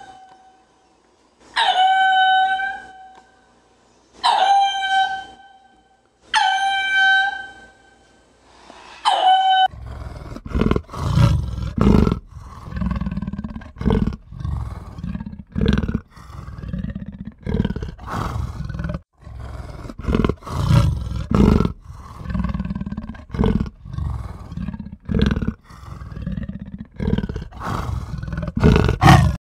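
Four long wailing animal calls, each held at one steady pitch, come about two seconds apart. About ten seconds in they give way to a big cat's long rhythmic series of low, rasping roar-like grunts.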